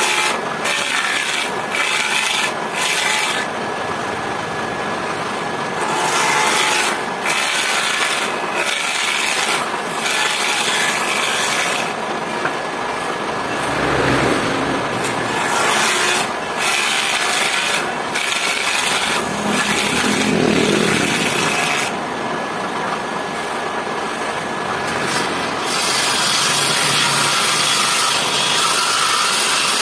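Belt-driven jointer planing a narrow wooden board, the cutting noise swelling and easing as the board is pushed across the cutter head in repeated passes.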